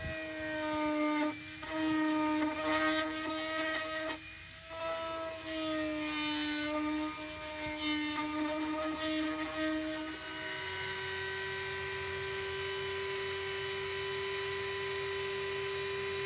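Small corded rotary tool with a fine burr grinding into high-density polyethylene: a steady high whine whose pitch dips slightly as the bit bites. About ten seconds in it changes abruptly to a steadier, slightly higher whine.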